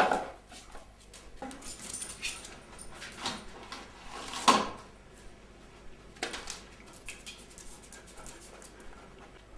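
A dog fetching the mail at the front door: scattered clicks, knocks and rattling as it moves over the tiled floor and handles the post. The loudest knock comes about four and a half seconds in.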